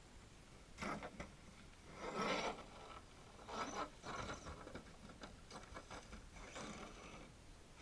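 Radio-controlled car's tyres scraping and crunching over loose dirt and stones in a few short, scratchy bursts, the loudest about two seconds in.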